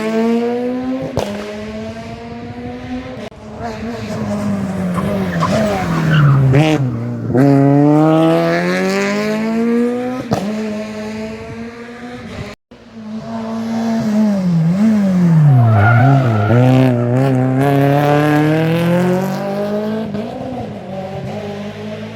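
Rally car engine revving hard, the note climbing through the gears, falling sharply under braking and climbing again out of the corner, with tyres squealing and a few sharp cracks. After a brief cut about halfway, a second pass goes the same way.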